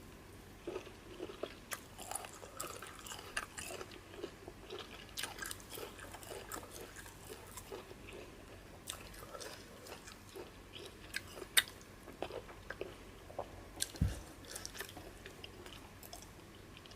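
Close-miked chewing and eating by hand: fufu and peanut soup being chewed, with wet mouth noises and scattered sharp clicks. A single dull thump comes about fourteen seconds in.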